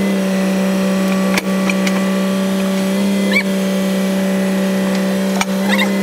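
Excavator diesel engine idling steadily at constant speed, with a couple of sharp metallic clicks and short high squeaks on top.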